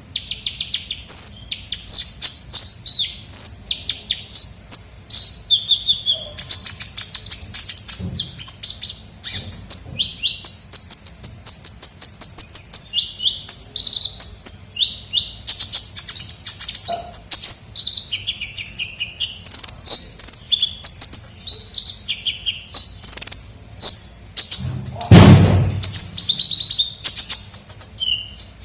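Sunbird ('kolibri ninja') singing energetically: rapid, high-pitched chirps and twitters, with a fast, even trill near the middle. A dull thump is heard once, late on.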